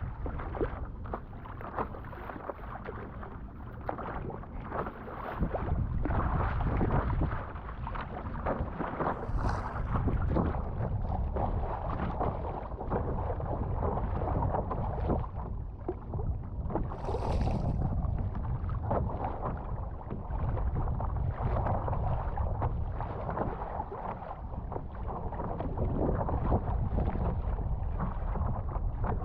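Strong wind rumbling and buffeting the microphone, with water sloshing and splashing irregularly against a paddle board, and two short hissy splashes about a third and two thirds of the way through.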